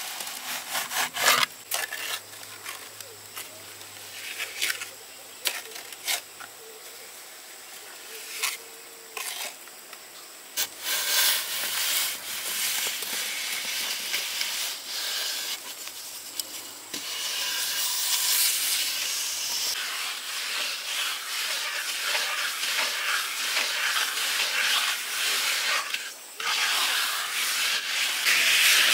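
Construction work on the rabbit house: scattered knocks and taps, then a steady rasping scrape from about ten seconds in that runs on with short breaks.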